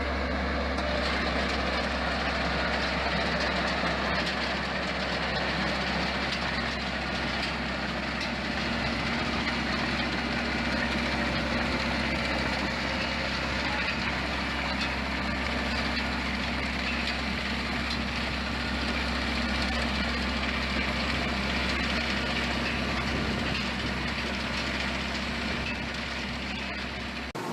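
A machine running steadily with a constant low hum, which cuts off abruptly near the end.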